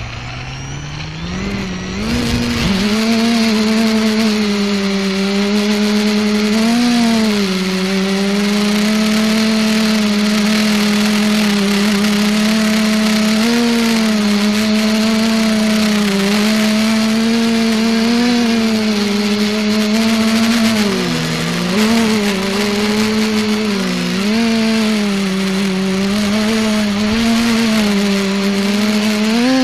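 Multicopter's electric motors and propellers spinning up over the first two seconds from a low hum to a steady buzz at take-off, then holding in flight with small rises and dips in pitch as the throttle is worked. Heard close up through the camera mounted on the craft.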